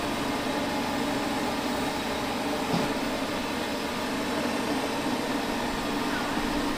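Steady mechanical hum of a running machine, a constant low drone under an even hiss.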